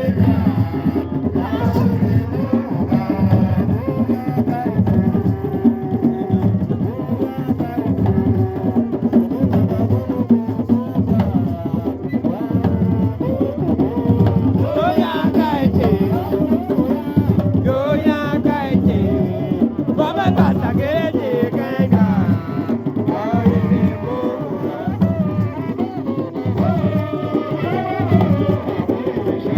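Music with a steady drum beat and a melody over it.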